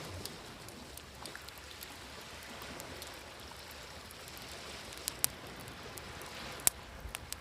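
Campfire crackling with a few sharp pops, the loudest about five seconds in and again near the end, over a steady wash of sea waves.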